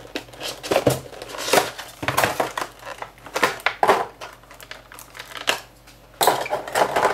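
Clear plastic blister tray being pulled from a cardboard box and handled, crackling and clacking irregularly, with the loudest run of crinkling near the end.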